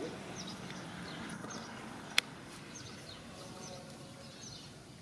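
Small birds chirping here and there in the background over a low steady hum, with one sharp click about two seconds in.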